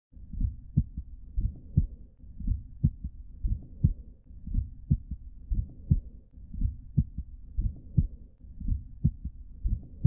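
Heart sounds from a bicuspid aortic valve without significant stenosis or regurgitation, recorded at the cardiac apex through a Thinklabs One digital stethoscope. The heart beats about once a second, and each beat is a pair of short, low thuds.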